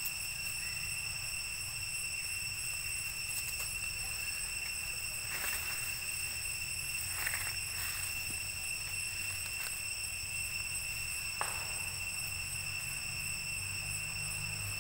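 Steady high-pitched insect drone in forest, one unbroken whine, with a low rumble underneath. A few brief faint rustles or chirps come in the middle.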